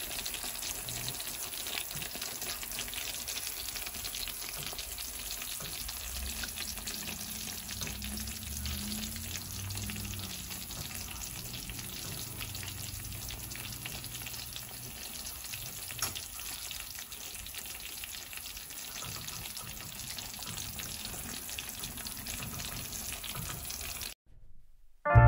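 A dish of chicken Alfredo stuffed shells fresh from the oven, with the hot cheese sauce sizzling and crackling steadily. It cuts off abruptly near the end.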